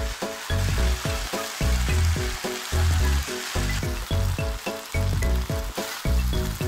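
Beef, bean sprouts and rice sizzling in a hot oiled frying pan as they are stir-fried with a wooden spatula. Background music with a steady, bouncy beat plays over it and carries the low end.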